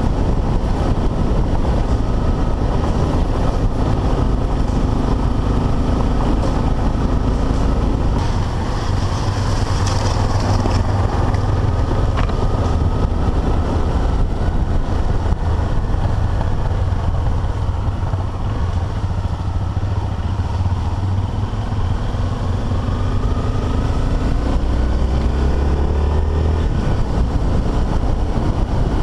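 Single-cylinder dual-sport motorcycle engine running while riding on a dirt road, its pitch rising and falling with the throttle and climbing near the end, with heavy wind rumble on the microphone.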